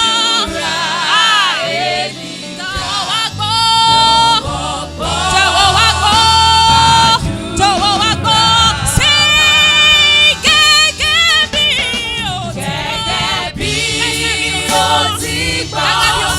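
Gospel worship song: voices singing long, wavering held notes in Yoruba over a low instrumental backing, with no spoken words.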